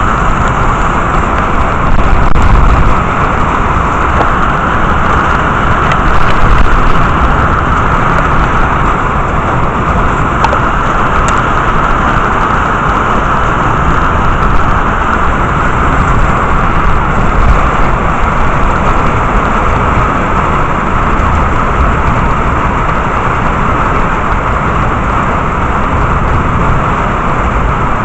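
Heavy rain of a thunderstorm pouring steadily, a loud even hiss, with a few brief low surges about two and six seconds in.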